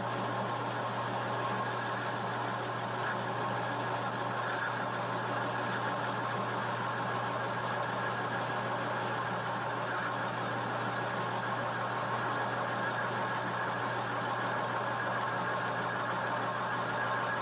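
Metal lathe boring out the inlet of a turbocharger's cast-aluminium compressor housing, the boring bar cutting steadily with the lathe's hum beneath. This is the housing being contoured to fit a billet compressor wheel.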